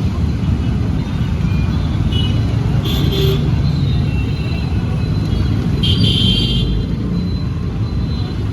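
Busy road traffic: a steady low rumble of vehicle engines and tyres, with two short high-pitched horn beeps, about three seconds in and about six seconds in.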